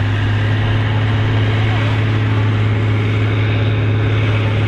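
Massey Ferguson 8130 tractor's diesel engine running flat out under heavy load as it pulls a sled, a loud steady drone with a strong low hum that holds constant.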